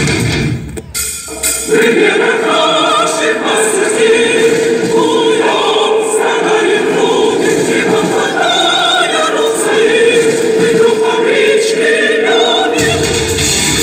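Music: after a brief drop, a choir sings a sustained piece with no bass. Band music with bass and guitar cuts back in near the end.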